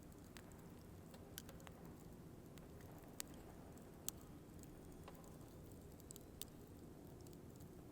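Wood fire burning, with scattered sharp crackles and pops from the logs over a steady low rumble of the flames.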